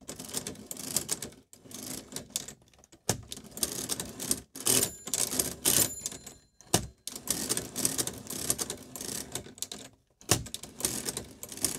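1920s Monroe hand-cranked mechanical calculator being cranked through a division by repeated turns of the crank. Its gears and ratchets clatter in runs of rapid clicks, broken by short pauses.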